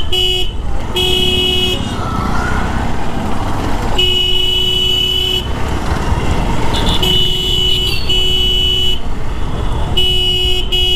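Motorcycle horn honked repeatedly in about seven short beeps of one steady pitch, the longest a little over a second, about four seconds in. Underneath is the steady rush of wind and engine noise from a motorcycle riding slowly.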